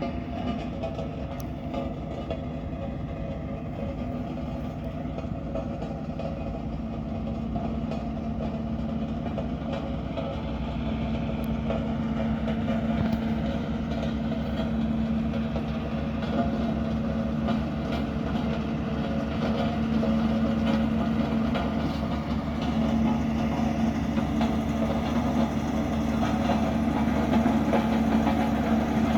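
Diesel engine of a Dynapac road roller running steadily with a strong, even hum, growing gradually louder as the machine works or draws nearer.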